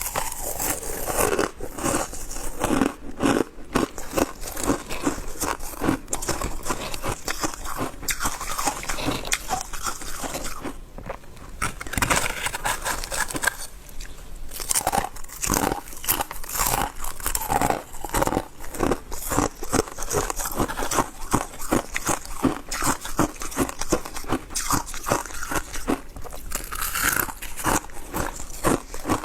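A person biting and chewing shaved ice: a dense, continuous run of crunches, with a couple of short pauses midway.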